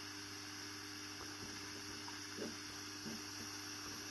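Quiet steady electrical hum and hiss, with a few faint soft taps.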